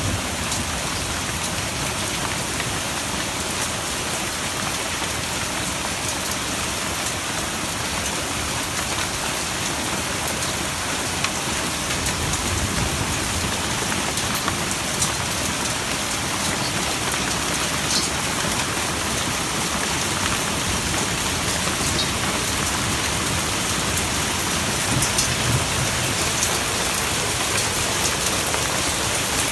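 Heavy rain and hail pelting down: a dense, steady hiss with scattered sharp ticks of hailstones striking. Low rumbles of thunder come through about halfway and again near the end, almost drowned out by the rain and hail.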